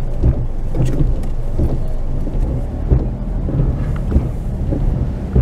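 Car moving slowly on wet pavement in heavy rain, heard from inside the cabin: a steady low rumble of engine, tyres and rain on the car.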